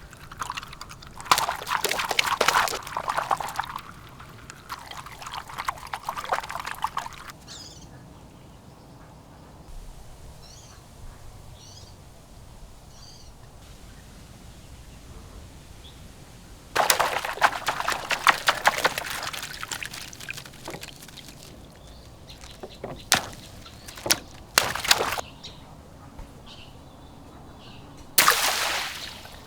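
Water pouring and splashing in several bursts of a few seconds each, with short sharp splashes near the end. Faint bird chirps between the bursts.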